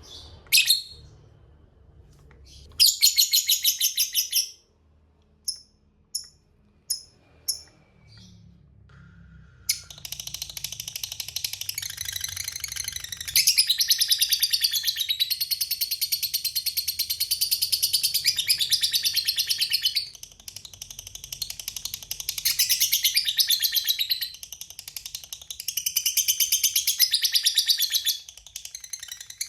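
Lovebird giving its long rapid chattering trill ("ngekek panjang"). A short trill comes first, then a few single chirps, and from about ten seconds in a near-continuous run of fast, high, shrill trills broken only by brief pauses.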